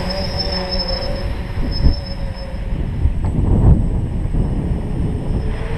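Tricopter's electric motors and propellers whining in flight, a high steady tone that drifts slowly lower, with wind buffeting the microphone.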